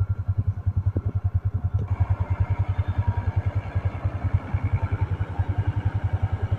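Tractor engine running with a steady low chugging of about ten firing pulses a second; from about two seconds in a rattling mechanical noise rises over it.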